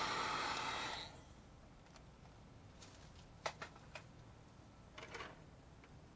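Electric heat gun blowing hot air onto heat-shrink tubing over a soldered wire splice: a loud, even hiss that cuts off about a second in. After it, a few light clicks and a brief rustle as the sealed splice is handled.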